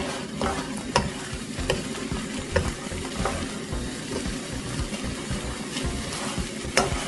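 Fish cake balls and vegetables in a thick chilli sauce sizzling in a pan while a wooden spatula stirs them. A few sharp knocks of the spatula against the pan stand out.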